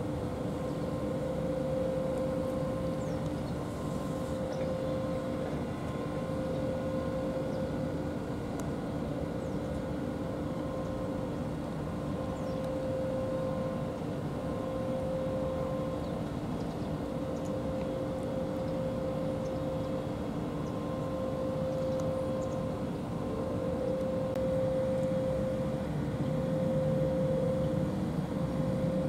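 An engine running steadily, giving a constant droning hum that grows a little louder near the end.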